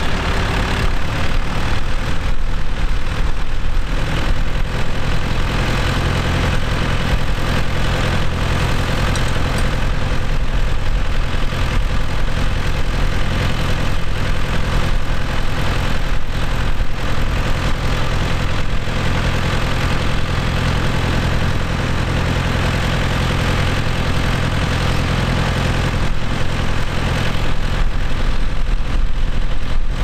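John Deere tractor's diesel engine idling steadily at close range.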